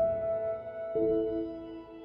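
Slow, soft instrumental background music: held notes that fade, with a new chord entering about a second in.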